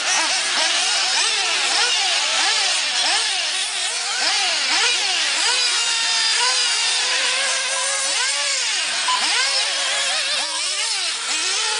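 Several 1/8-scale nitro RC buggies' small glow-fuel engines running at high revs together, their overlapping whines rising and falling over and over as the cars throttle up and brake.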